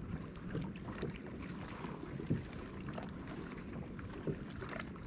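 Wind-driven water lapping against a bass boat's hull, with wind on the microphone, scattered light knocks and one louder thump a little past two seconds in.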